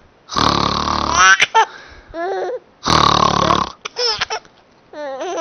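A man's exaggerated fake snores, two loud drawn-out snorts about a second each, each answered by a young child's high-pitched giggling.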